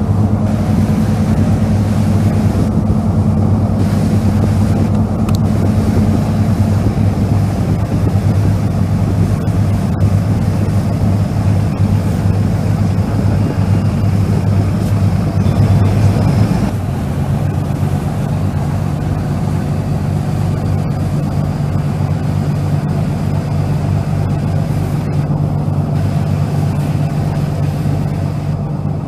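Passenger ferry's engines droning steadily, heard on board over the rush of water and hull noise. About halfway through, the engine hum changes pitch.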